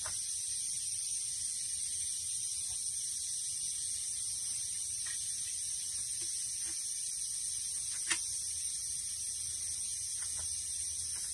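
Steady high hiss of outdoor background with a low hum under it, broken by a few faint clicks and taps, the sharpest about eight seconds in.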